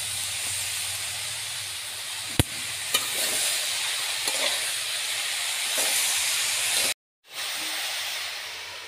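Chopped bottle gourd frying in oil in a wok, a steady sizzle, with a sharp knock of the stirring utensil about two and a half seconds in and lighter knocks after it. The sound drops out for a moment near the end, then the sizzle resumes.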